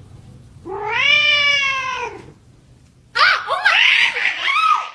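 Domestic cat giving one long meow, rising then falling in pitch, about half a second in. It is followed about three seconds in by a louder stretch of wavering, choppy high sound.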